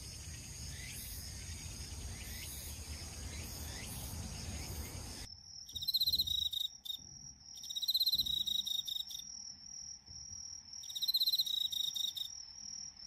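Outdoor ambience with a low rumble and faint high calls, then, about five seconds in, night insects chirping: a steady high trill with louder pulsed chirps coming in groups about every three seconds.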